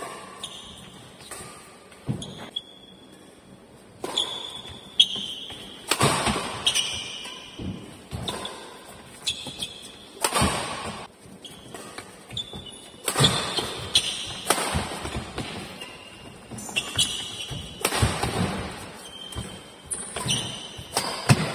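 Badminton rally: rackets cracking against the shuttlecock, feet thudding on the court and shoes squeaking as the players lunge and change direction, sounding all through the rally.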